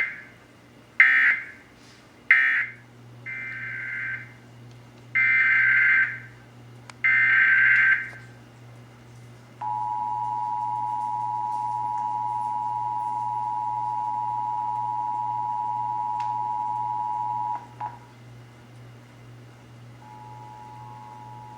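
Emergency Alert System tones. First come three short bursts of the warbling SAME digital data tones (the end-of-message code), then three longer data bursts (the header of the next test). Then the two-tone attention signal (853 and 960 Hz) holds steady for about eight seconds and cuts off. Near the end a second, quieter two-tone attention signal begins, over a low steady hum.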